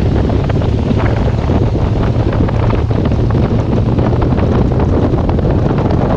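Motorcycle engine running steadily at cruising speed, a constant low hum under heavy wind noise on the microphone.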